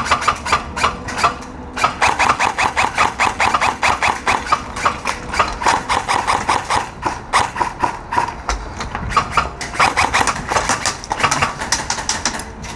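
Airsoft guns firing long full-auto bursts, a fast, even clatter of shots. There are short breaks about two seconds in, around seven seconds and about ten seconds in.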